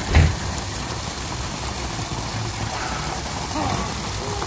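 Steady low rumble of outdoor background noise, with one short thump just after the start and faint voices about three seconds in.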